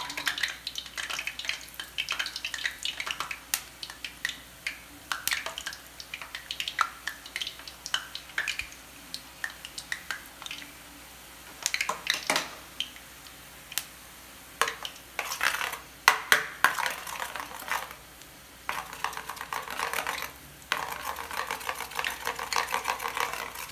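A steel spoon scraping and clinking against a perforated steel ladle and a batter bowl, with gram-flour batter drops sizzling as they fry in hot oil. The sizzle grows stronger near the end.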